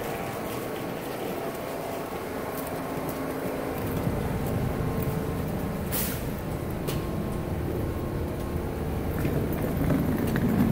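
Subway station noise beside a New York City subway train standing at the platform with its doors open: a steady mechanical hum with passengers' footsteps. A low rumble builds from about four seconds in, and there is one short sharp noise about six seconds in.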